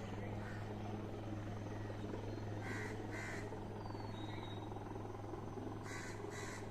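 Crows cawing, a pair of short calls about three seconds in and another pair near the end, over a steady low mechanical hum.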